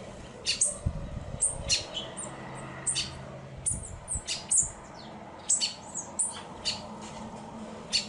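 Silver-beaked tanager giving many short, sharp, high-pitched call notes at irregular intervals, a few of them falling in pitch.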